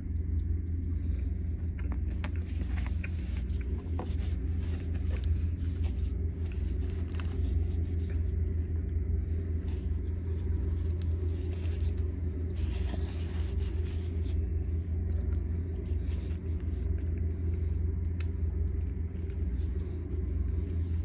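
A steady low background rumble, with faint scattered clicks and scrapes as hands move baked Hasselback potatoes around a paper plate.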